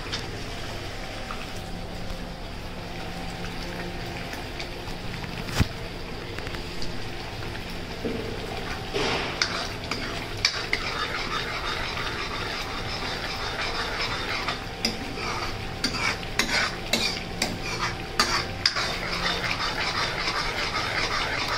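Onion, garlic, ginger and green chilli masala paste sizzling and bubbling in oil in a steel kadai while a steel ladle stirs and scrapes it, the masala still cooking toward the point where the oil separates. Sharp clinks of the ladle against the pan: one loud one about a quarter of the way in and a run of them in the last third.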